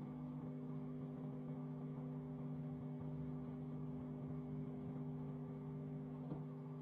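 Microwave oven running with a steady electrical hum, with a faint tick near the end.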